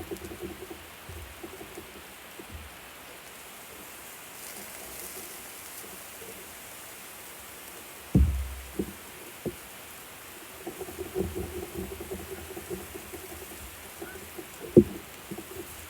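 Food sizzling and crackling on a barbecue grill, with a few knocks about halfway through and a sharper, louder knock near the end.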